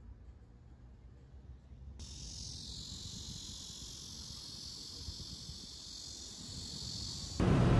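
Faint room tone, then about two seconds in a steady, high-pitched insect chorus. Near the end a loud rushing noise cuts in suddenly.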